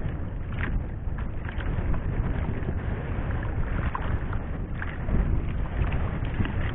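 Wind buffeting the microphone over water moving against a small fishing boat at sea, a steady noisy rush strongest in the low end, with a few faint light knocks.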